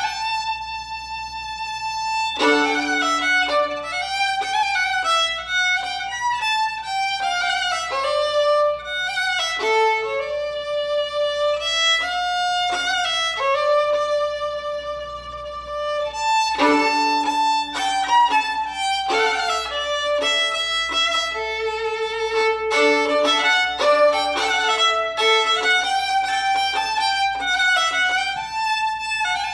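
Solo fiddle playing a traditional Limousin tune, a running melody with some notes sounding together.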